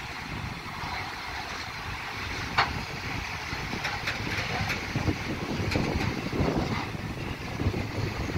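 Freight train of open-top gondola wagons rolling past: a steady rumble of steel wheels on the rails, with a few sharp clicks from the wheels and running gear.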